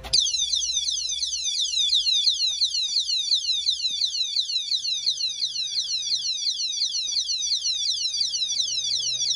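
Motion-triggered alarm of a Jacool disc lock on a motorcycle's front brake disc, screaming after the bike is pushed: a very loud, high electronic siren of rapid falling sweeps, about three a second, that starts suddenly.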